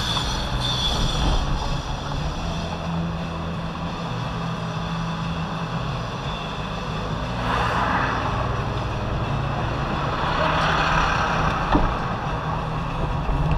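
Car driving, heard from inside the cabin: a steady engine and tyre rumble with road hiss, swelling twice, around eight and eleven seconds in, and one sharp click just before twelve seconds.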